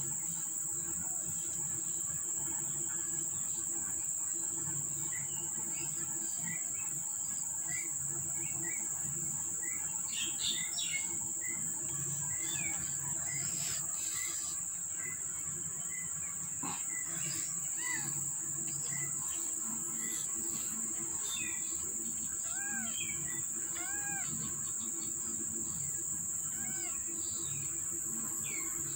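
Background ambience: a steady high-pitched insect drone, with small birds chirping on and off.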